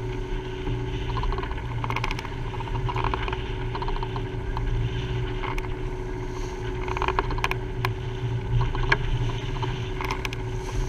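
An Océanis 411 sailing yacht driving through rough sea under genoa in strong wind: wind noise and water rushing along the hull, with a faint steady hum and scattered brief clicks and knocks.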